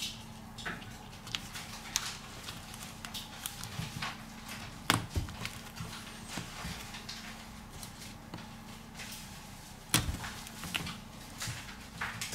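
Scattered small clicks and taps of hand tools against a smartphone's internal parts during disassembly, with two sharper knocks about five and ten seconds in, over a faint steady hum.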